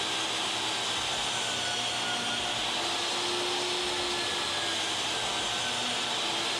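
DeWalt DWE7491 10-inch jobsite table saw running steadily on a test run, its motor and blade making an even, high-pitched whir with no change in load.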